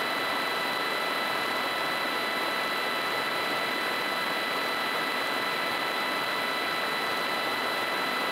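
Rotax 912UL four-cylinder flat-four engine and propeller of a Kolb Mark III ultralight, running steadily in level flight at an even, unchanging pitch.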